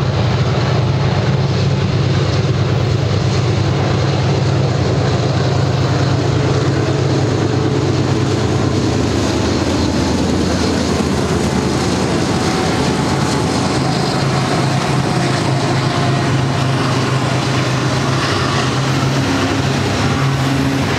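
BNSF freight train led by GE C44-9W diesel locomotives: a steady low engine drone as the locomotives approach and pass about ten seconds in, followed by the continuous rumble of double-stack container cars rolling past on the rails.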